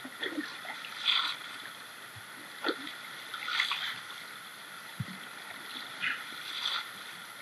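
A shovel digging into a flooded riverbed hole: short splashes and scrapes of wet gravel about once a second, with a couple of dull thuds, over the steady rush of the river.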